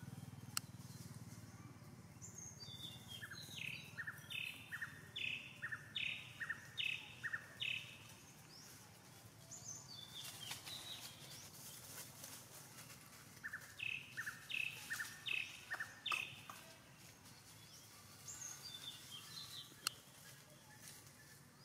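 A bird calling in two runs of short, evenly spaced notes, about one and a half a second: about seven notes from about three seconds in, then about five more around the middle, over a faint forest background.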